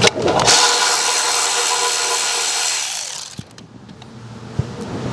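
Cordless power driver with a 10 mm socket running for about three seconds, backing out a cover bolt on a snowblower, then winding down.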